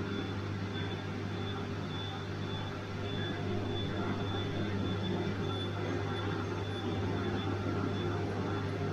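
Bosch washing machine running: a steady low hum with a whir over it and a faint high-pitched whine, unchanging throughout.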